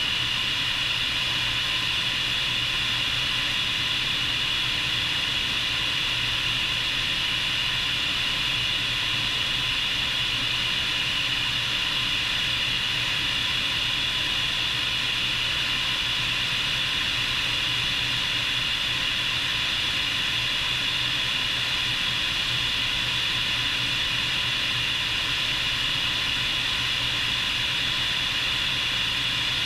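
Bell 430 twin-turbine helicopter in steady flight, heard from outside the cabin: a steady high turbine whine over rushing airflow, with a low rotor-drive hum beneath.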